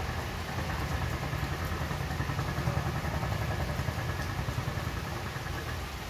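Steady rain with a low engine rumble, like a vehicle, that swells to its loudest around the middle and eases off near the end.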